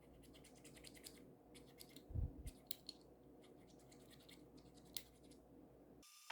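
Faint, irregular clicks and scratching, with one low bump about two seconds in and a sharp click near the end.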